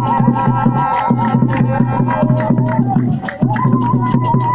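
Live Adewu dance music. Drums beat quick, even strokes, about five a second, under sharp ticks and a high wavering tone. The drumming drops out briefly a little past three seconds in, then resumes.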